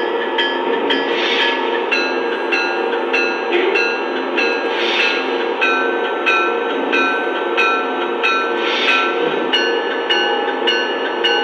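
Lionel Amtrak Acela O-scale locomotive's onboard sound system playing its effects: a rapid run of short electronic tones, about three a second, that shift pitch a few times, over a steady hum, with a short hiss every few seconds.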